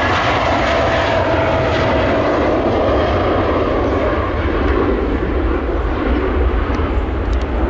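Twin-engine jet airliner at take-off thrust, rolling down the runway and lifting off: a steady loud jet roar, with a faint whine falling in pitch as it passes about a second in.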